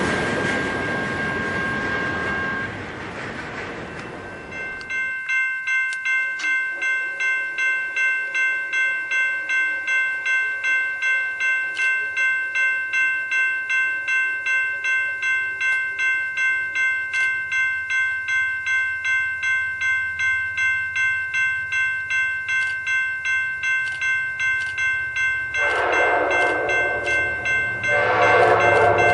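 The last cars of a freight train rolling past fade out while a grade-crossing signal rings. Then a railroad crossing bell rings steadily, a little under two strikes a second. Near the end, the approaching Amtrak Cascades train's locomotive sounds its horn: one long blast, a short break, then a second blast.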